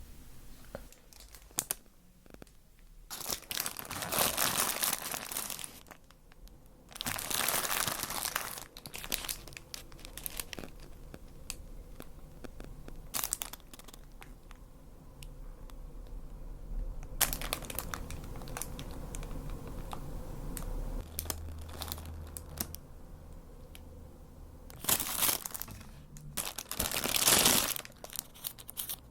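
Paper food packaging crinkling and rustling as it is handled and opened, in several bursts of a few seconds each, with quieter handling noises between.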